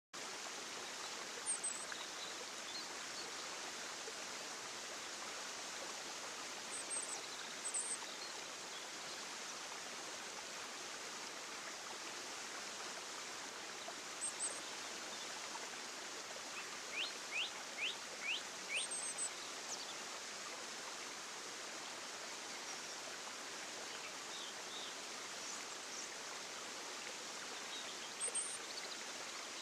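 A steady rushing noise like running water, with a few short, high bird chirps scattered through it and a quick run of five chirps a little past the middle.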